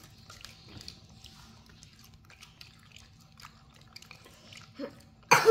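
Monkeys picking small cooked shrimps off a plate and chewing them: faint scattered clicks, taps and crunches. Near the end, a sudden loud cough-like vocal sound breaks in.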